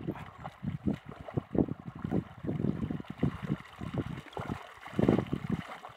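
Shallow water sloshing and splashing in uneven strokes as it is stirred and scooped through, loudest about five seconds in.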